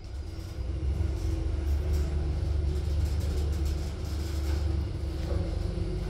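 Passenger elevator car travelling upward, heard from inside the cabin: a steady low rumble with a faint steady hum, swelling within the first second as the car gets under way.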